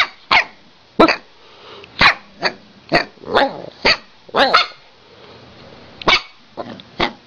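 Wolf-husky mix barking at its owner in a string of about a dozen short, sharp barks, some bending in pitch, with a pause of about a second past the middle.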